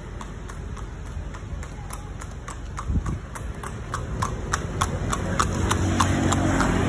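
A cart horse's hooves clip-clopping on asphalt in a steady rhythm, about four strikes a second. A low rumble grows louder in the second half.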